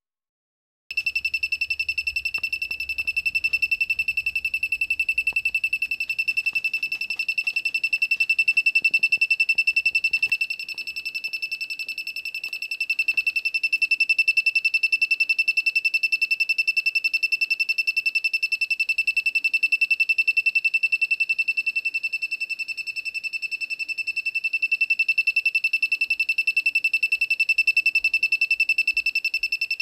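The battery-powered electronic sound effect of a 1983 Popy Bandai Space Sheriff Sharivan sound-and-flash action figure: a high electronic tone pulsing rapidly, starting abruptly about a second in and then running on with slight swells and dips in level.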